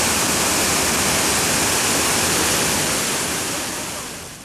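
Small waterfall cascading into a rocky stream: a steady, loud rush of falling water that fades away over the last second or so.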